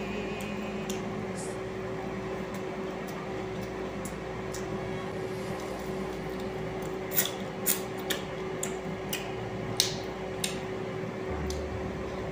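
Close mouth sounds of someone eating by hand: a run of sharp, wet clicks and smacks of chewing about seven to ten seconds in, over a steady room hum.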